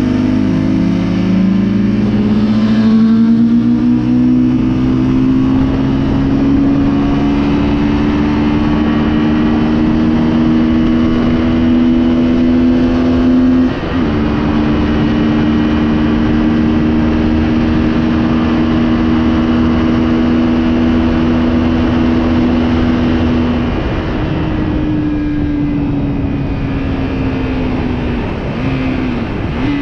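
Remapped 125cc motorcycle engine pulling hard. Its pitch climbs, drops sharply on gear changes about a second in and just before halfway, holds steady at speed, then falls away near the end as the bike slows. Wind rushes over the microphone throughout.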